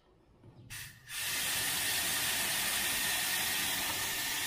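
Water spray from a hose nozzle misting into a dog pen to cool the dog: a short first spurt, then a steady hiss from about a second in.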